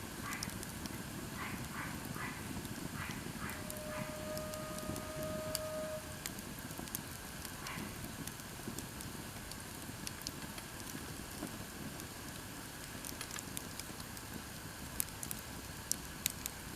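Wood campfire burning and crackling, with scattered sharp pops from the burning split firewood and a few louder pops near the end. A run of short, quickly repeated animal calls sounds in the first few seconds, and a steady held tone lasts about two seconds.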